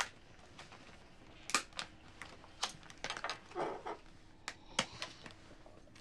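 Scattered clinks and taps of tableware during a meal: about half a dozen short, separate knocks, with a brief soft rustle near the middle.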